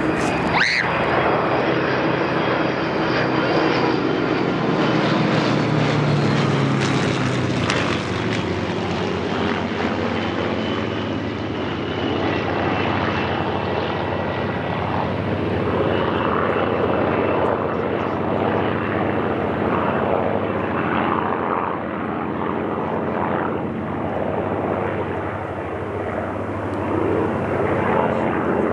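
Piston-engined propeller warbird flying past, its engine running steadily. The engine's pitch drops as it passes, about six to eight seconds in.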